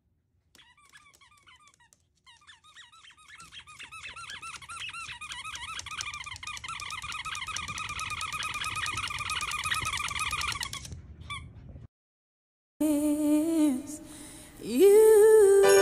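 Rapid high-pitched squeaks, at first scattered and then many a second, growing louder and stopping abruptly about eleven seconds in. After a brief silence, music with a held tone and gliding pitches starts.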